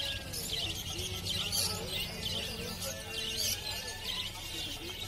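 Many caged birds chirping together, a steady run of short, high chirps several times a second.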